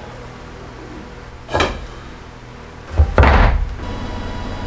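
A stone slab and dumbbells set down on a wooden panel as weights to hold a glued-up board flat. There is a short knock about one and a half seconds in, then a heavier, deeper thud followed quickly by another knock just after three seconds.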